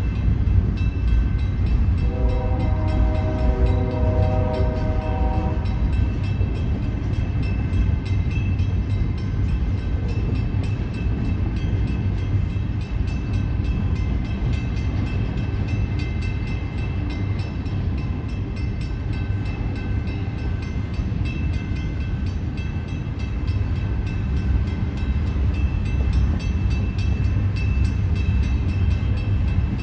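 Train passing, with a steady heavy low rumble of its cars on the rails. About two seconds in, its horn sounds once for roughly three and a half seconds.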